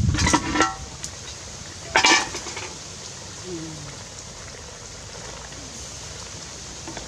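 Metal cooking pot lid and ladle clanking as the lid is worked off the pot. There is a ringing scrape near the start and a sharper clank about two seconds in.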